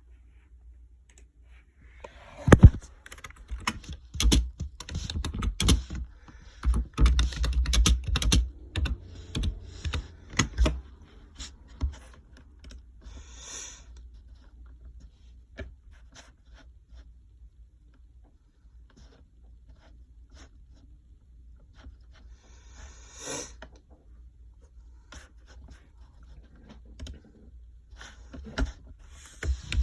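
Typing on a computer keyboard in bursts of quick clicks and taps, busy for the first several seconds, sparse through the middle, then picking up again near the end.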